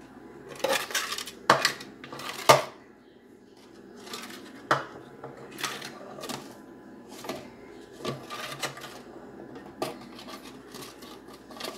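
Metal spoon scraping and clinking against an aluminium tube cake pan as hot caramelised sugar is spread over its sides and centre tube. Sharp clinks come at irregular intervals, the loudest about two and a half seconds in.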